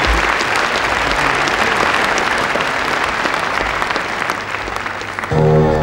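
Theatre audience applauding, the clapping easing off slightly. About five seconds in, a loud, deep sustained tone with overtones cuts in as music begins.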